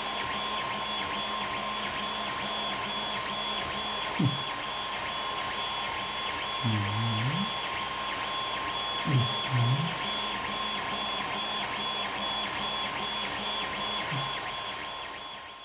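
Creality Ender 3 3D printer running a print: a steady fan tone with the stepper motors driving the print head back and forth in a quick, even rhythm, and a few short low dips and rises in pitch. The sound fades out near the end.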